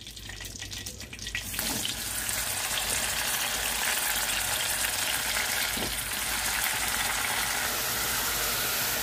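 Wet brinjal (eggplant) pieces, just lifted from salt water, going into hot oil in a kadai: a steady frying sizzle that sets in about a second and a half in and holds to the end, with a few faint handling clicks before it.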